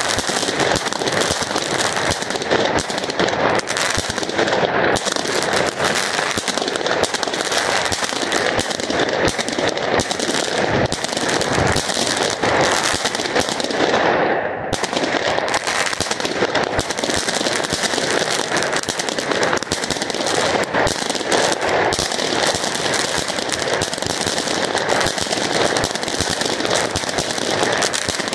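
Keller Monsterbombette, a 50-shot 20 mm consumer fireworks battery, firing shot after shot in quick succession. Its breaking bouquets burst with crackling and coloured stars.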